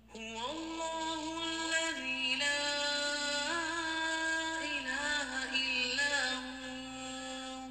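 A single voice chanting a slow melodic line, holding long notes and ornamenting them with quick turns, with no instruments. It comes in sharply just after the start and eases off near the end.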